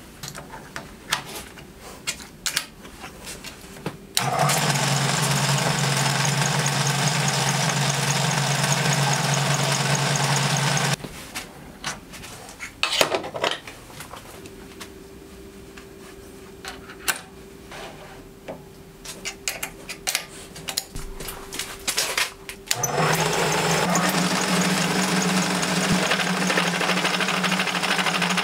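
Metal lathe running with a steady mechanical hum while turning a round steel bar. The sound starts abruptly about four seconds in and stops around eleven seconds in. Scattered clicks and handling knocks follow, and then the lathe runs again for the last five seconds.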